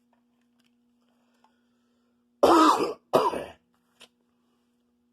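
A person coughs twice in quick succession, about two and a half seconds in.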